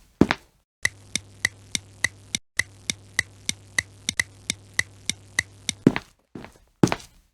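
Cartoon sound effects: a few footsteps at the start and again near the end. Between them, for about five seconds, comes an even run of sharp clicks, about three a second, over a steady low hum.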